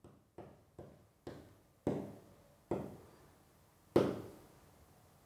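A series of seven sharp knocks, each with a short echo, coming louder and further apart; the last and loudest falls about four seconds in.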